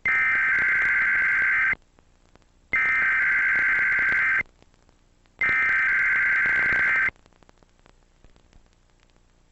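Emergency Alert System SAME header: three bursts of digital data tones, each under two seconds and about a second apart, the coded header that opens an EAS test alert. Faint hiss follows.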